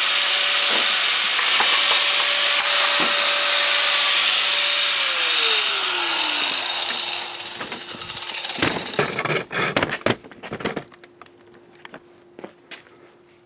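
Harbor Freight Drill Master 4.5-inch angle grinder cutting through a steel lawnmower handle with a loud steady hiss, then switched off about five seconds in, its motor winding down with a falling whine. A run of clattering knocks follows near the middle, then a few faint ticks.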